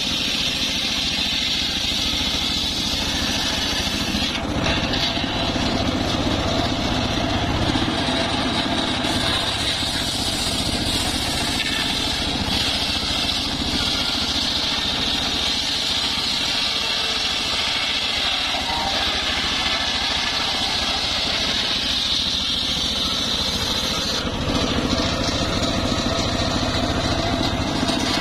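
Homemade bench circular saw ripping a trembesi (rain tree) log lengthwise, the blade cutting steadily through the wood over the machine's running drone. Near the end the cut's sound changes as the slab comes free of the blade.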